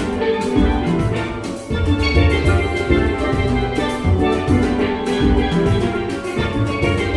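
Steel band playing: several steel pans sounding a melody and chords over a drum kit keeping a steady beat.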